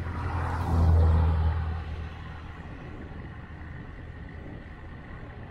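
A motor vehicle passing close by on the road: engine rumble and tyre rush swell up about a second in and fade by two seconds. Steady wind and road noise runs underneath.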